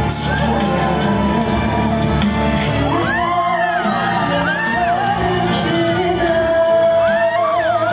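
Live song performance in a concert hall: a male singer sings over a backing track and holds one long note near the end, while fans shout and whoop.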